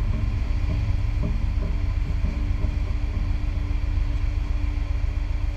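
Steady low rumble with a constant hum over it, even in loudness, with no sharp bang.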